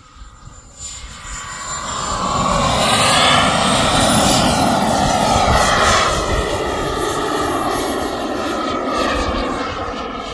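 Turbine engine of a Mephisto RC jet model, a loud whine with a high whistle as the jet makes a fast pass. It swells over the first few seconds, its pitch slides down as it goes by, then it slowly fades as the jet climbs away.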